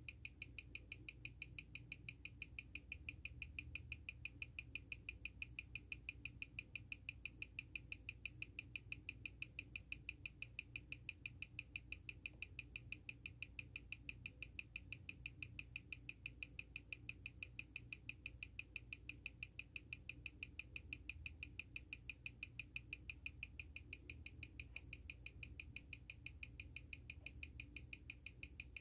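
Seiko SARB035's 6R15 automatic movement ticking steadily at 21,600 beats an hour, about six sharp ticks a second, picked up by a timegrapher. The timegrapher reads it at about 2 to 4 seconds a day slow, with an amplitude around 235°.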